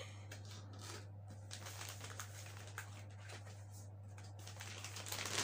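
Faint rustling and crinkling of paper and cardboard packaging being handled, a little louder near the end, over a steady low hum.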